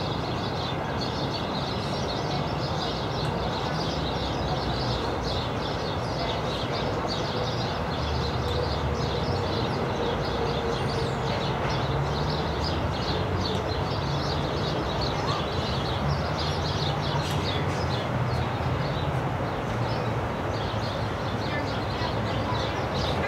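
Steady outdoor background noise: a low, even rumble with many short, high chirps or ticks scattered throughout.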